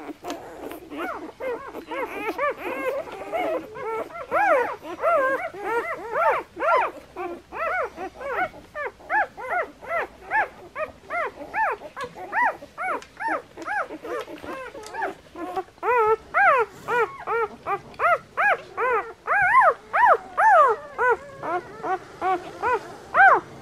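Newborn German Shepherd puppies squealing and whining: a continuous string of short, high cries that rise and fall in pitch, about two or three a second.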